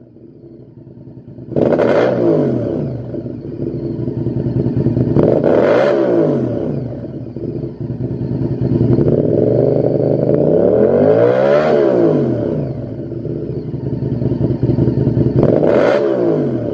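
Honda VTR1000's 90-degree V-twin engine through a Lextek XP8C aftermarket silencer, idling and then blipped four times, each rev rising sharply and falling back to idle. The third rev is held longer than the others.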